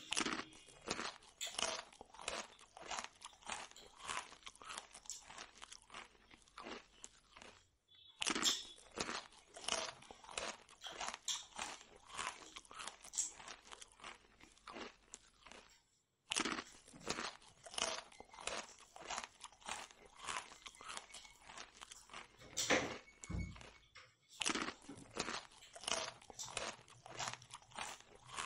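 Close-miked chewing and crunching of fried Indian food, puri bread with potato gravy: irregular crisp bites and wet chewing. The sound cuts out for a moment about a third and two thirds of the way through.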